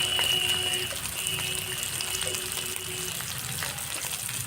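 Hot cooking oil sizzling steadily in a frying pan. A thin, steady high tone sounds over it for about the first three seconds.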